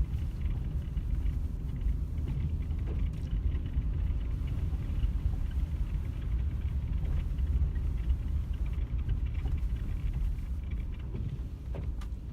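Snowstorm wind buffeting the microphone: a steady low rumble that swells and eases irregularly, with faint scattered ticks.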